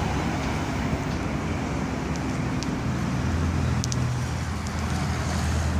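Steady low mechanical hum over a bed of background noise, with its pitch shifting slightly about halfway through, and a few faint ticks.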